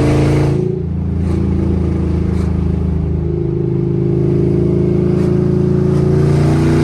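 5th-gen Camaro SS 6.2-litre V8 running very loud through open long-tube headers with no exhaust pipes fitted, at modest revs while driving. The revs dip briefly under a second in, then climb steadily.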